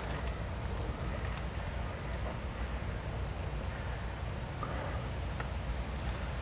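Outdoor ambience: a steady low rumble, with a thin, high-pitched animal call repeating in short pieces over the first four seconds or so.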